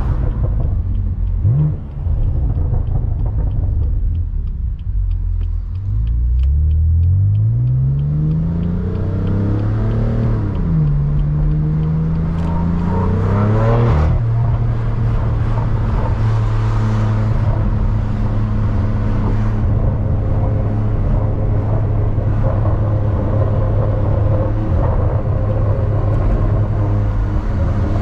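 BMW M3 CS twin-turbo inline-six with an AWE SwitchPath exhaust: it runs low at first, then accelerates hard, its pitch rising, with a brief dip at a gear change. About halfway through it drops sharply at another shift, then settles into a steady cruise.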